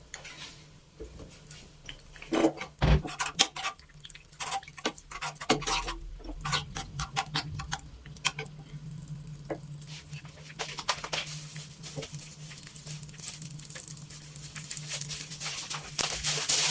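Dishes and cutlery clinking and knocking as they are handled, in many short separate taps, over a low steady hum.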